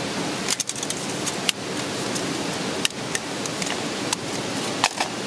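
Parts of an alcohol stove's storm cone windshield being clipped together, giving a handful of sharp light clicks and clinks, over the steady rush of a nearby waterfall.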